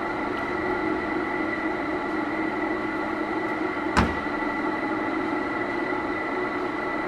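Steady mechanical hum of workshop machinery with several steady tones, and one sharp metallic clank about four seconds in as a metal part from the differential's clutch pack is set down on the bench.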